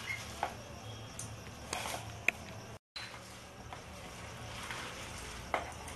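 Sliced onions being squeezed and mashed by hand with salt in an enamel bowl, to soften them: faint wet squishing and rustling with a few light clicks.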